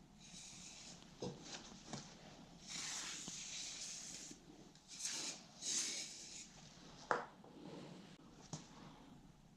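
Hand work on a motorbike's rear tyre and wheel: irregular stretches of rubbing and scraping, with sharp knocks about 1, 2, 7 and 8.5 seconds in.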